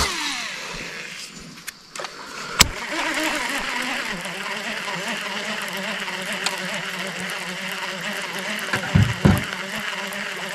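A cast with a baitcasting reel: the spool spins out with a whine that falls in pitch, a sharp click about two and a half seconds in, then a steady whirring hum as the reel is cranked to bring the lure back.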